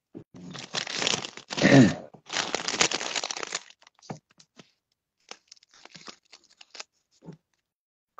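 Clear plastic bag crinkling and rustling close to the phone's microphone, loudest in the first three and a half seconds with a heavy bump about two seconds in, then a scatter of light crackles and clicks.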